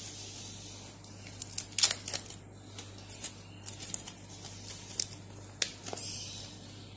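Steamed vazhana leaves crinkling and tearing as a leaf-wrapped kottappam is peeled open, with small irregular crackles and clicks.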